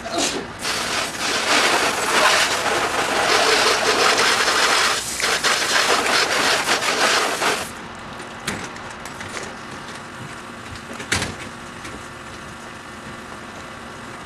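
A small metal wheeled cart rattling loudly as it is rolled over concrete and onto a trailer ramp, stopping abruptly about three-quarters of a second before the halfway point. A single sharp knock follows a few seconds later.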